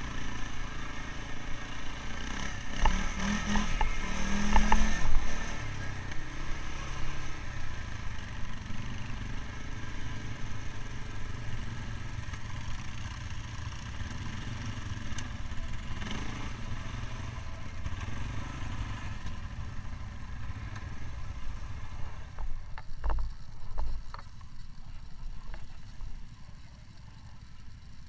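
Quad bike (ATV) engine running steadily, with knocks and rattles from the machine over rough ground, loudest about four to five seconds in and again briefly near the end.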